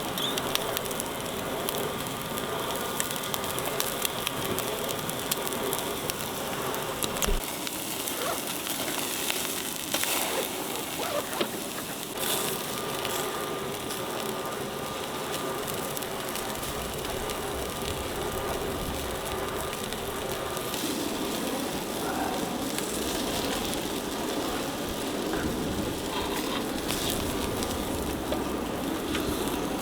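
Meat sizzling as it grills directly over campfire embers, with fat dripping onto the coals and crackling, sharp pops more frequent in the first half.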